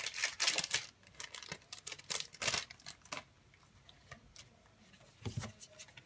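Foil booster-pack wrapper crinkling and tearing as a trading-card pack is opened by hand, with the cards rustling. A quick run of small clicks and crinkles comes first, then it goes quieter, and there is a louder rustle about five seconds in.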